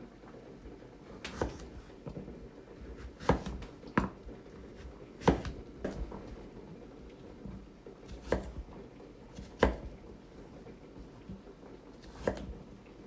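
Scattered sharp knocks of kitchen utensils and cookware being handled during food preparation, about eight at uneven intervals over a faint steady hum.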